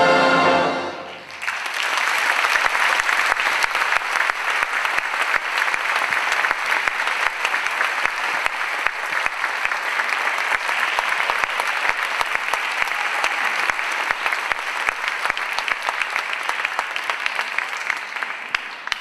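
Choir and orchestra hold a final chord that stops about a second in, then an audience applauds, clapping steadily and dying away near the end.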